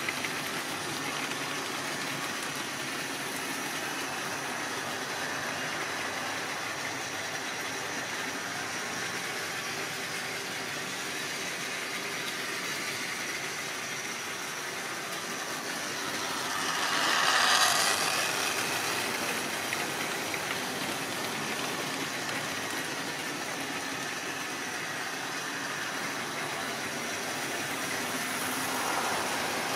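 Triang or Lima model trains running on the layout: a steady whirr and rattle of small electric motors and wheels on the track. It swells loudest for a couple of seconds as a train passes close about seventeen seconds in, and rises slightly again near the end.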